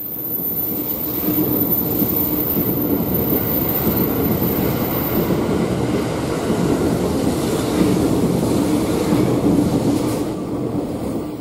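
JR East E001 series 'Train Suite Shiki-shima' cruise train running past along the platform: a steady rumble of wheels and running gear that fades near the end as the last car goes by.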